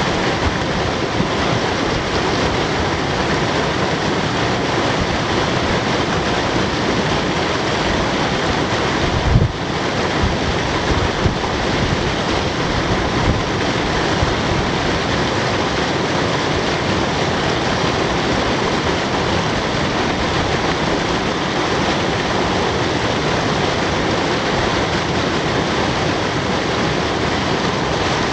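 Steady rush of water running over rocks, with a brief low thump about nine seconds in.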